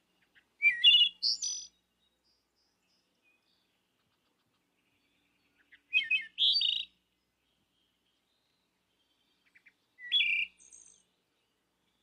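Wood thrush singing: three short song phrases about four to five seconds apart, each a quick run of clear whistled notes lasting about a second.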